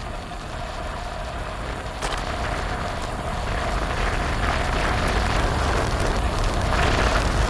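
Steady low wind rumble on the microphone with rolling noise from a bicycle being ridden, a faint steady whine and a few light clicks, growing slightly louder toward the end.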